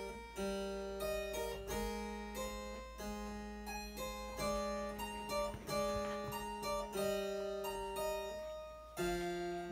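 Harpsichord being played: a slow line of plucked notes over held low notes, with a short break about eight and a half seconds in before a new chord.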